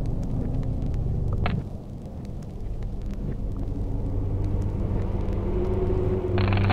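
Sound-design drone for an animated film: a low rumble with steady low humming tones, a short rising streak about a second and a half in, and a burst of hiss starting near the end.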